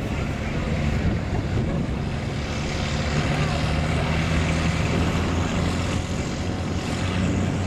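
Farm tractor engine running steadily under heavy load as the tractor pulls a weight sled down the track.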